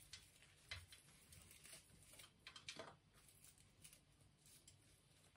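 Near silence with a few faint crackles and rustles, the clearest about a second in and about three seconds in: dry, dead orchid roots and old potting substrate being picked apart by hand.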